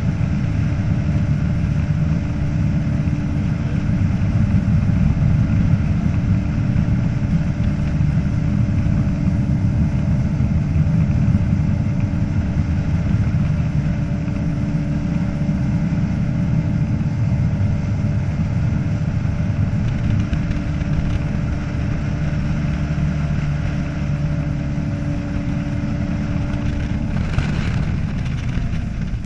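Ski boat's engine running steadily at towing speed, with wind and water rush. Near the end the engine note falls in pitch.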